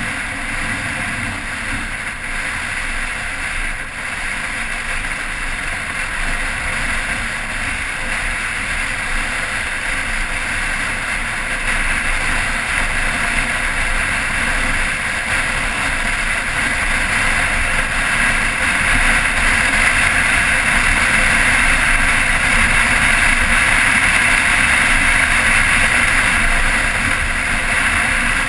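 Motorcycle riding along at road speed: a steady mix of engine and wind noise on a camera mounted on the bike, getting louder a little before halfway through.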